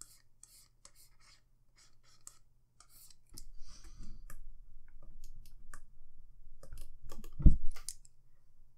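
Computer mouse clicking repeatedly and scraping as it is dragged across the desk for sculpting brush strokes. A dull thump against the desk about seven and a half seconds in is the loudest sound.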